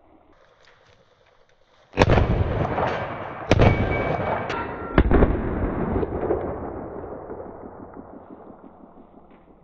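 Three loud 9mm pistol shots about a second and a half apart, with a couple of fainter cracks between them, each followed by a long echoing rumble that slowly fades away.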